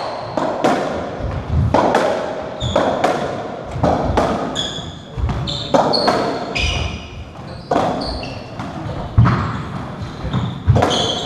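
A racketball rally in a squash court: the ball is struck by the rackets and hits the walls and floor, a sharp hit about every second, each one echoing around the court. Short high squeaks from the players' shoes on the wooden floor come between the hits.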